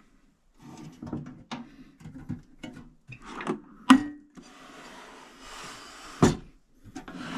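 Metal mini tool boxes being handled and stacked: a run of clicks and knocks, a scraping slide in the middle, and two sharp knocks, near four and six seconds in.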